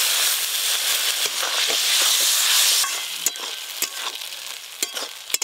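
Frying masala and tomatoes in a kadai sizzle loudly as spice-rinsing water is poured in, a hiss that dies down after about three seconds. A metal spatula then scrapes and stirs the pan, with a few sharp clicks.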